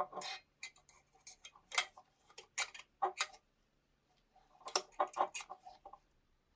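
Irregular clicks and light taps of small hard parts being handled, in scattered single clicks with a busier clattering run near the end.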